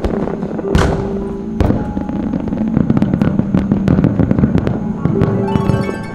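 Aerial fireworks bursting in a quick string of bangs, two big ones about a second in, then a crackling shower near the end.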